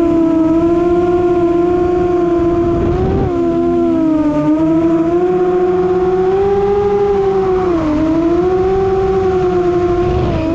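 FPV racing quadcopter's motors and propellers giving a steady high buzzing whine. The pitch sags briefly about three seconds in and again near eight seconds as the motor speed drops, then climbs back, with a low wind rush underneath.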